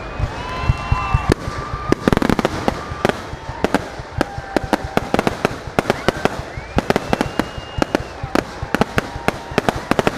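Aerial fireworks bursting in quick succession, many sharp bangs a second, with several long whistling tones rising and falling over them.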